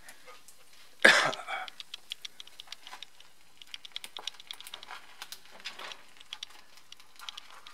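Blackened, boiled-down Coca-Cola in a hot frying pan crackling and popping in many small irregular ticks as it smokes and sets. A single short, loud burst comes about a second in.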